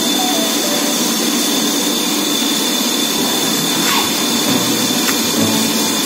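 Vegetable washing machine running, its air blower bubbling water hard through the stainless steel wash tank: a steady, loud rush of churning water and air.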